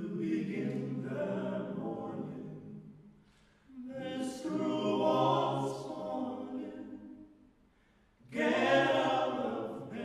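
Four men singing a cappella in close harmony, in three phrases of about three seconds each with short pauses between them.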